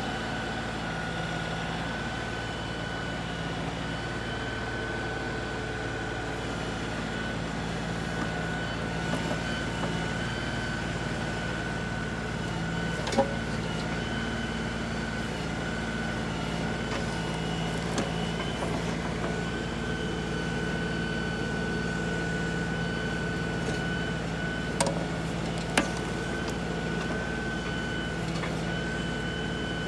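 The 35-horsepower diesel engine of an LS XR3135 compact tractor running at a steady speed. A few short clicks or knocks sound over it.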